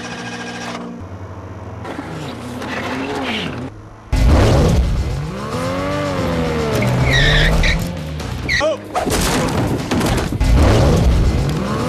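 Car engine revving hard with tyres squealing, starting suddenly and loudly about four seconds in, the pitch rising and falling repeatedly as the car is driven at a pedestrian.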